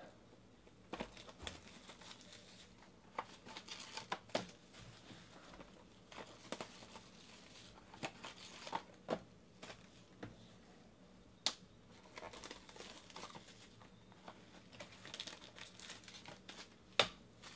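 Clear plastic shrink wrap being torn and peeled off a sealed box of trading cards, crinkling in faint, scattered crackles, with a few sharper snaps a little past halfway and near the end.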